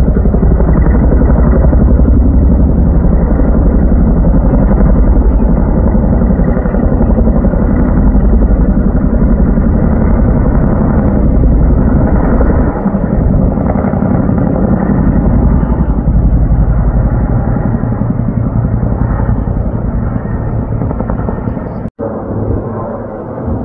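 Heavy firefighting helicopter, with a water bucket slung beneath it, flying close by. Its rotor makes a loud, rapid pulsing that holds steady, then drops to a quieter level after a brief break near the end.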